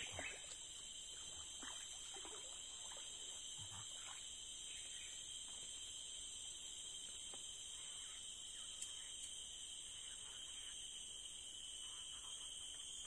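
Steady high-pitched insect chorus, several shrill tones sounding at once without a break, with a few faint soft knocks.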